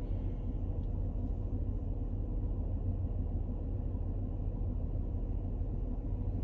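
Steady low rumble of an idling car heard inside its cabin, with a faint steady hum running through it.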